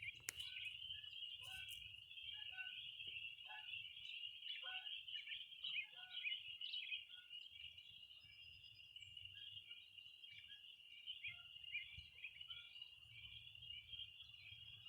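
Steady, high-pitched insect chorus of the cricket or cicada kind, with short chirping calls scattered over it, thickest in the first half. A low rumble lies underneath, and there is one sharp click just after the start.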